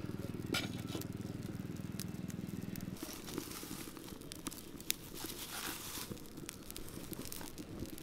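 Wood fire of dry sticks crackling and popping in a clay mud stove, with many sharp irregular snaps. A low steady hum runs underneath and stops about three seconds in.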